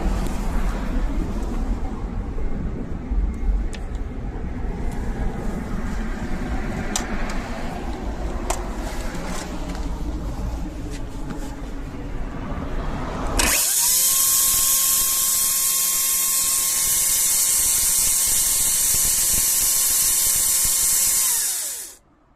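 Low rumble with a few sharp clicks, then a Makita MUC353D twin-18 V cordless chainsaw with a 350 mm bar starts suddenly about 13 seconds in. Its chain runs at a steady full speed with a high hiss and a whine for about eight seconds, then winds down quickly and stops near the end.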